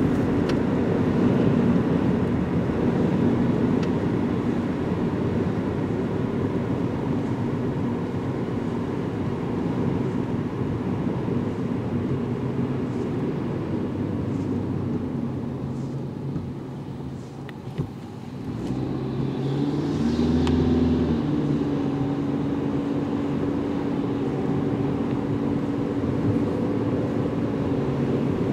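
Inside a moving car's cabin on a wet road: steady tyre and engine noise. It dips briefly about two-thirds of the way through, with a single click, then returns with a steady droning tone.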